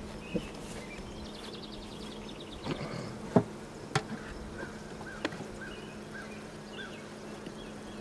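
Honeybees buzzing on an opened hive's comb, a steady low hum. A few sharp knocks come in the middle, the loudest about three and a half seconds in, and short high chirps repeat faintly in the background.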